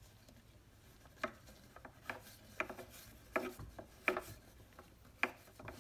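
Light irregular clicks and knocks, about six of them, with some rubbing, from a new fuel filter on its fuel line being worked back into a string trimmer's plastic gas tank.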